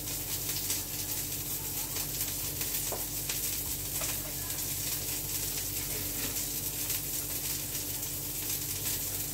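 Steady sizzling hiss of food cooking, over a low steady hum, with a few faint clicks and rustles.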